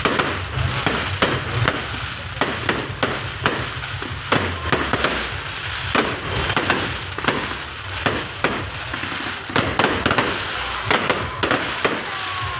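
Fireworks going off: a rapid, irregular run of sharp cracks and pops, several a second, over a steady crackling hiss.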